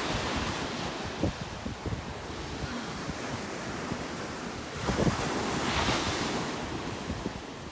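Ocean surf breaking and washing up the beach, swelling at the start and again about five seconds in, with wind rumbling on the microphone.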